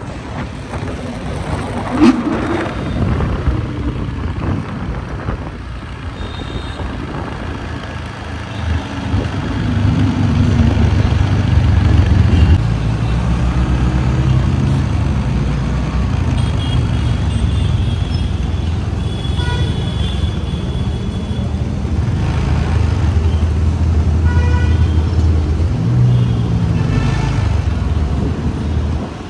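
Road traffic: car engines running and passing, with a sharp bang about two seconds in. The engine sound swells about ten seconds in and stays loud.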